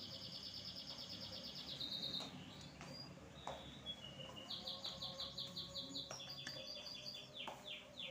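A songbird singing in fast trills of high repeated notes, one run at the start and a second, longer run from about halfway, ending in a few downward-sweeping notes. A few faint clicks in between.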